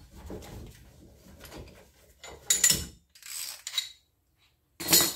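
A two-jaw gear puller being taken off a car's rear wheel hub and handled, with low rustling and then three sharp metallic clanks and rattles in the second half.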